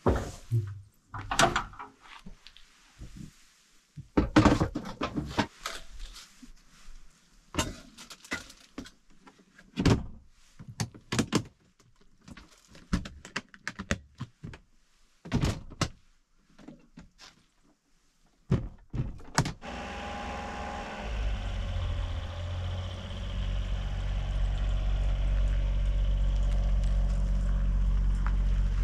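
Scattered knocks and thunks as the tailgate is handled and gear and plastic containers are loaded into the truck's camper shell. About twenty seconds in, this gives way to the Honda Acty kei truck's small engine running steadily at idle, growing a little louder.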